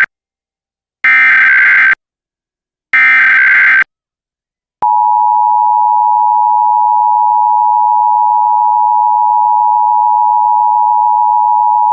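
Emergency Alert System broadcast alert. The tail of one data burst and then two more full bursts of the buzzy digital SAME header tones, each about a second long and a second apart. After a short gap, the EAS two-tone attention signal (853 and 960 Hz together) comes in about five seconds in and holds steady and loud.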